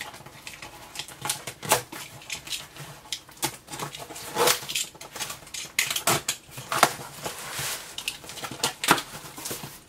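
A box cutter slitting the packing tape across the top of a cardboard box, in a run of short, irregular scrapes and clicks, with the cardboard flaps being pulled open near the end.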